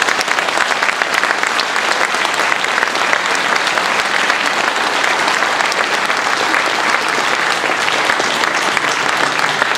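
Audience applauding: a steady round of clapping from many hands.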